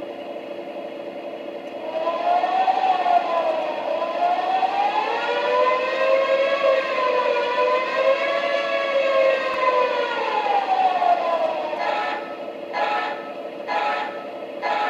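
Lionel 36730 U.S. Army sound car playing a recorded air-raid siren through its speaker: the wail rises and falls for about ten seconds over a steady hum. Near the end it gives way to a series of short, repeated blasts.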